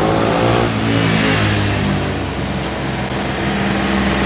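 A motor vehicle's engine running close by: its pitch slides in the first second, then holds steady.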